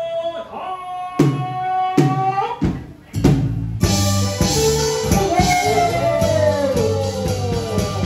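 Taiwanese opera (gezaixi) music: a held note ends, two percussion strokes follow, then a loud crash of percussion about three seconds in. The backing band then comes in with a steady beat and a melody line that slides downward.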